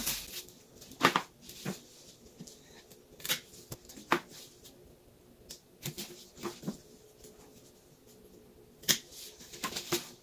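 Irregular sharp snips of a cutting tool closing on coleus stems, about eight in all, with the leaves rustling as they are handled.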